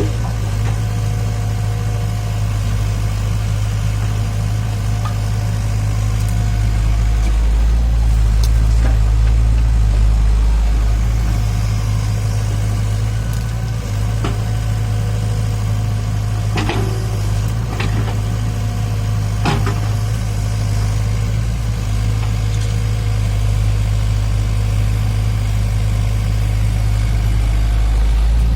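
Diesel engine of heavy earthmoving machinery running steadily at a low, even drone, with a few sharp knocks about two-thirds of the way through.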